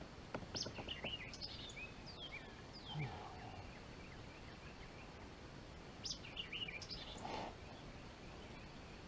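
A songbird singing faintly: two phrases of quick, looping whistled notes, the first starting about half a second in and the second about six seconds in, over faint outdoor background noise.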